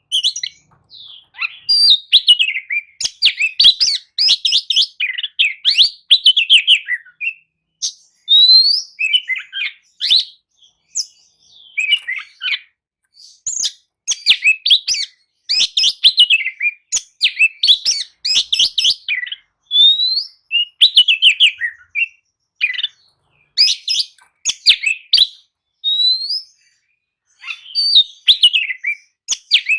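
Oriental magpie-robin (kacer) singing continuously in varied short phrases of clear rising whistles and rapid chattering notes, with brief pauses between them.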